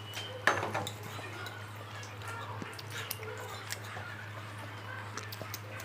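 Stainless-steel tableware clinking, with one sharp clink about half a second in and small scattered clicks and taps after it, over a steady low hum.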